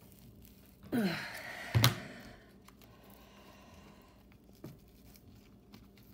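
Scissors cutting and tearing through cardboard palette packaging: a rough tearing sound about a second in, ending in a sharp thunk near two seconds. Then quiet, with a faint tap later on.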